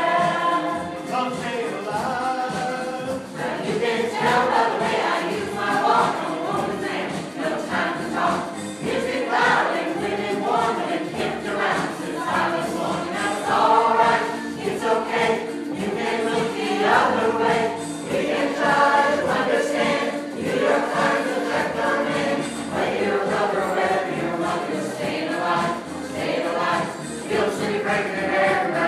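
A choir of many voices singing together, continuously.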